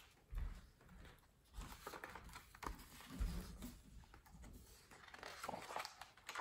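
Faint movement sounds: a few soft low thumps of footsteps on a hardwood floor, and the light rustle and flap of a large picture book's pages being turned.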